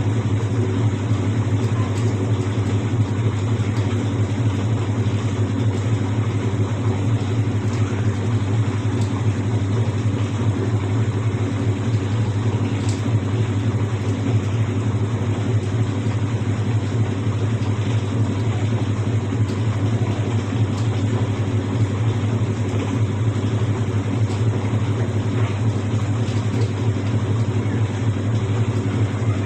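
Whirlpool White Magic Royal Plus 7 kg washing machine spinning with a steady hum and no knocking, running on newly fitted suspension rods that replaced the worn ones that had made it jump in spin.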